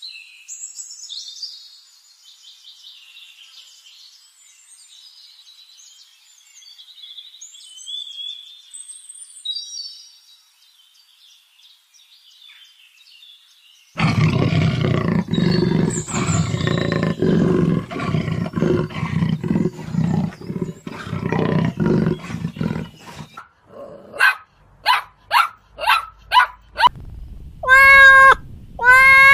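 Small birds chirping and trilling for about the first fourteen seconds. Then a lion roaring starts suddenly, loud and deep, as a long run of grunts about two a second for some nine seconds. Near the end a domestic cat meows twice.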